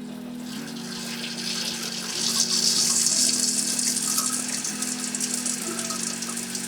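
Water running in a steady stream, getting louder about two seconds in.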